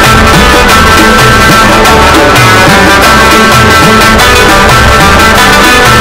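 Loud background music with a steady beat and moving bass notes.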